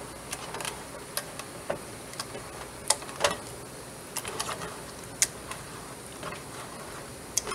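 Plastic masher working thick jam in a stainless steel pot, its head knocking against the pot in irregular light clicks, about one or two a second.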